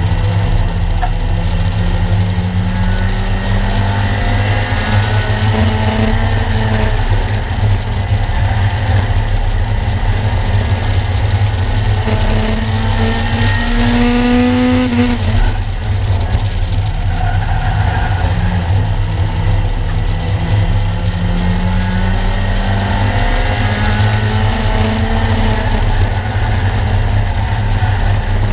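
A 1-litre stock car's engine heard from inside its stripped cabin, revving up in rising sweeps along the straights and dropping back for the bends, several times over. Underneath runs a steady deep rumble. The longest climb comes about halfway through and falls away sharply as the driver lifts.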